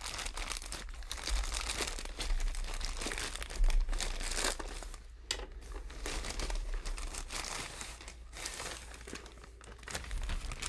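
Packaging being crinkled and torn by hand as a mailed package is opened: an irregular run of crinkles and rips, loudest about four seconds in.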